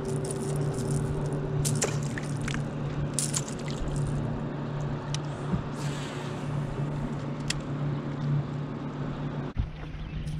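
Electric trolling motor humming steadily under a wash of water against the boat hull, with a few sharp clicks and ticks over it.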